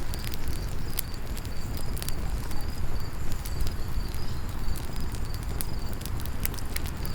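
Layered campfire ambience: a fire crackling and popping over a low rumble, with a high insect chirp repeating in pairs throughout.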